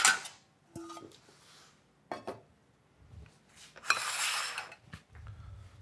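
A metal spoon clinks into a stainless steel utensil container, followed by a few light knocks of kitchenware. Near the end, ceramic plates scrape across a stainless steel counter for about a second.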